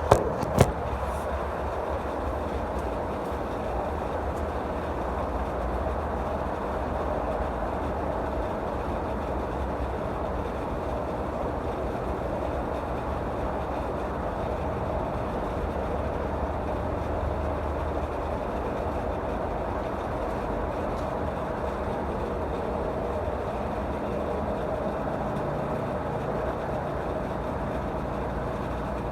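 Two sharp knocks in the first second, as from a phone being set down, then a steady machine hum with a low rumble that holds unchanged.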